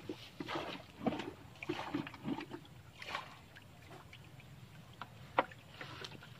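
Shallow water and mud splashing and sloshing in a half-drained irrigation canal, as irregular short splashes and knocks that thin out after about three seconds. One sharp click comes about five seconds in.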